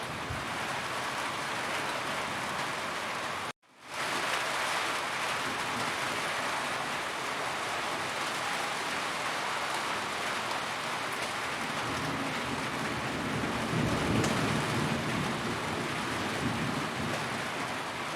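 Steady heavy rain falling on a roof, with a low rumble of thunder swelling about thirteen seconds in. The rain cuts out abruptly for a split second about three and a half seconds in and fades quickly back up.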